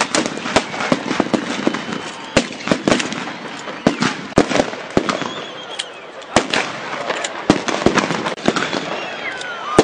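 Military rifles firing blank cartridges in a staged battle: an irregular string of sharp gunshots, about two a second, from several shooters, some close and loud, some farther off.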